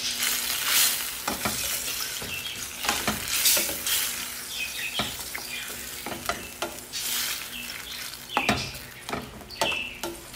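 Sweet and sour sauce of tomato and pineapple tidbits sizzling in a stainless steel frying pan, stirred with a spatula that scrapes and clicks against the pan many times.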